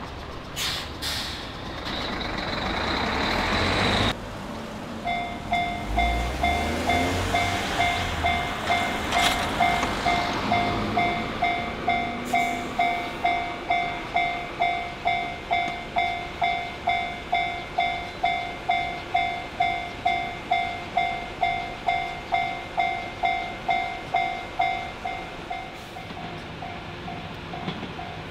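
A Japanese railway level-crossing warning bell ringing in a steady ding-ding rhythm of about two strokes a second, signalling an approaching train, and going fainter near the end. Before it, for the first few seconds, a car passes.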